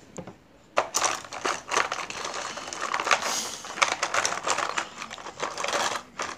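Plastic felt-tip markers clattering against each other as a hand rummages through a pencil case full of them. It is a dense, irregular run of clicks and rattles that starts about a second in.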